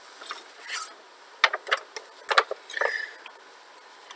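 A few sharp clicks and short rustling noises at irregular moments, the two loudest clicks about a second and a half and two and a half seconds in.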